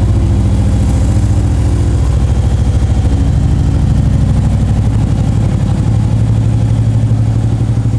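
Harley-Davidson Road Glide Custom's Twin Cam 103 V-twin idling steadily with an even pulsing beat, through aftermarket American Custom mufflers.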